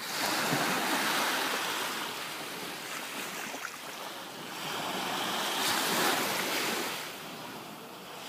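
Mediterranean Sea waves breaking and washing up the shore, the noise of the surf swelling and fading with each wave, twice.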